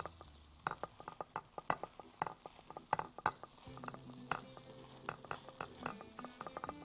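Plastic perforated spoon tapping and scraping against a ceramic plate and a mound of cooked rice, a run of quick, irregular clicks as the rice is patted into shape.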